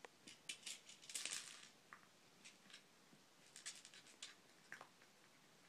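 Light clicking and rattling of a plastic treat-tower puzzle feeder as cats paw at it, in two short flurries, about a second in and again around four seconds.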